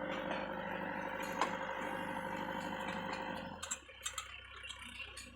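Tracked backhoe's engine running steadily under working load, then its sound drops away about three and a half seconds in to a lower, quieter idle, with a few clicks near the end.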